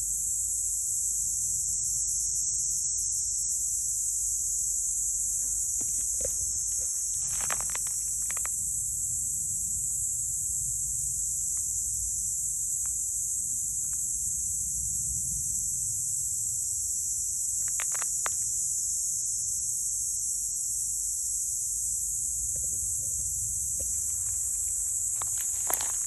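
Steady high-pitched chorus of insects droning without a break, with a few soft clicks and rustles now and then.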